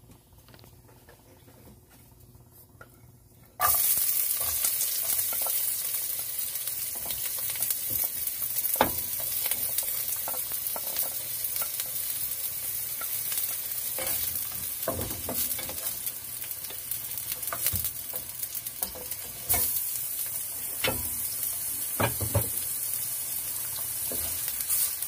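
Diced onion sizzling in hot oil in a nonstick wok. The sizzle starts suddenly about four seconds in, with the spatula scraping and knocking in the pan now and then as the onion is stirred.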